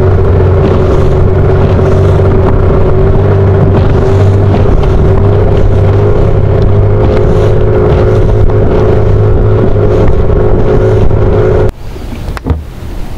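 Outboard motor of a small aluminium boat running steadily at speed. Near the end the motor sound cuts off abruptly, leaving quieter noise and a single knock.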